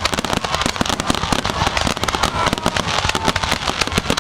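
Fireworks going off in a dense, continuous barrage of rapid crackling pops and bangs.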